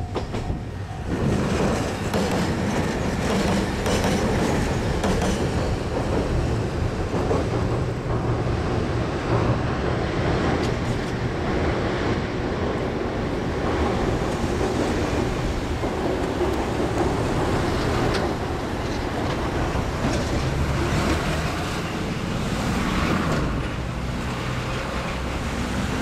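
A level-crossing bell rings briefly at the start. Then a diesel train runs past in a steady rumble, its wheels clicking over the rail joints.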